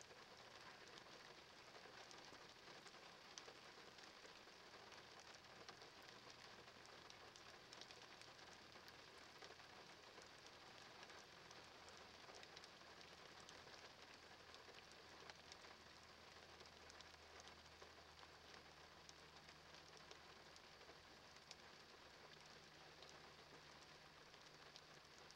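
Near silence: the faint, even patter of light rain, with a low distant hum growing in about two-thirds of the way through.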